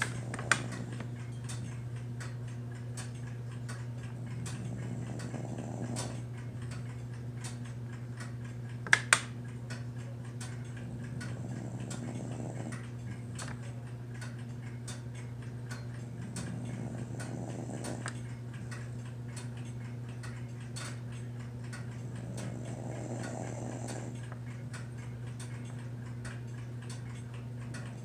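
Snoring: slow, soft breaths that swell about every six seconds over a steady low hum, with scattered light ticks and two sharp clicks about nine seconds in.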